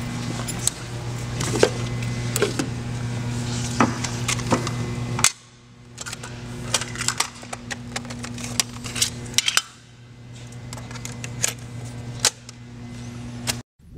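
Sharp plastic clicks and clacks of a portable cassette boombox being handled, its buttons pressed and tape loaded, over a steady low hum.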